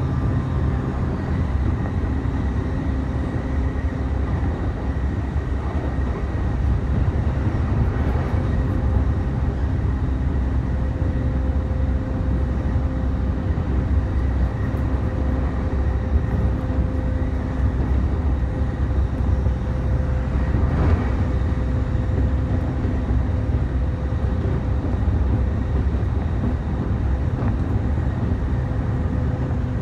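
Running sound inside a JR East E531 series electric commuter train at speed: a steady rumble of wheels on the rails with a faint steady hum, and one brief louder clatter about two-thirds through.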